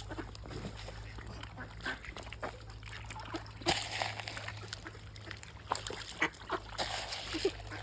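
Ducks quacking in short, scattered calls, with a couple of brief bursts of rushing noise, one about halfway through and one near the end.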